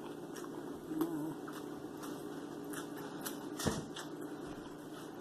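Close-up chewing of a taco: soft, scattered crunching clicks and a brief hummed 'mm' about a second in. One sharp knock comes at about three and a half seconds.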